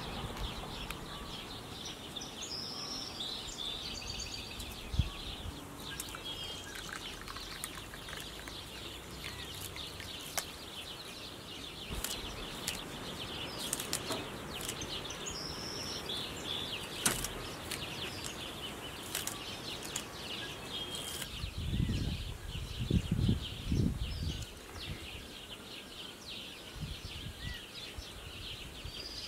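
Outdoor rural ambience: a steady high chirring of insects, with a few short bird chirps and scattered sharp clicks. A cluster of soft low thumps comes about three-quarters of the way through.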